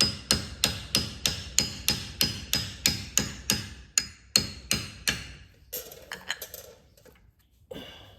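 Hammer striking metal in a quick, steady run, about three blows a second for some five seconds, knocking worn bushings out of a Polaris Ranger side-by-side. A few lighter, irregular knocks follow near the end.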